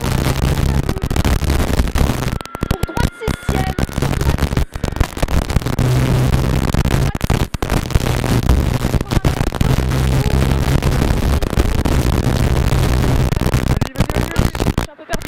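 Rally car engine driven hard, heard from inside the cockpit: the engine note holds steady for a second or two at a time, then breaks off through lifts and gear changes, under loud road and mechanical noise with sharp cracks.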